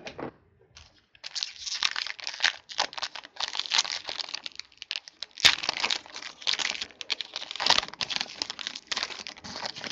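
Plastic trading-card pack wrapper crinkling and tearing as the pack is opened, in irregular rustling bursts with a couple of sharp snaps.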